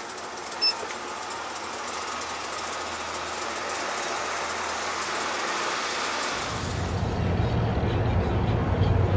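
Steady vehicle noise: an even rushing sound that slowly grows louder. About six seconds in it changes abruptly to a louder low rumble.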